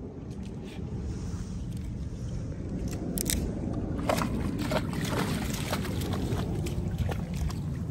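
A borzoi lapping lake water: a run of small wet slurps and splashes from about three seconds in, over steady wind and lapping waves.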